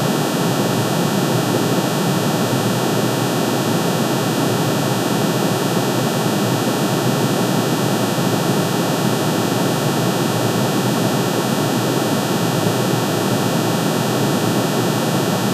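Aluminium's atomic emission spectrum rendered as sound: many sine tones, one per spectral line, summed into a dense, steady drone that holds unchanged in pitch and loudness.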